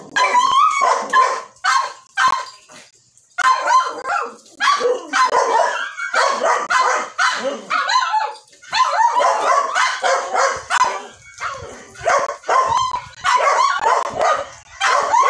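Toy poodle whining and yipping over and over in short high calls while being bathed, with a brief pause about two seconds in.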